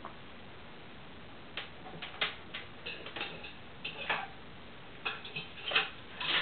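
African grey parrot bathing in a steel water bowl: irregular splashes start about a second and a half in and come more often toward the end.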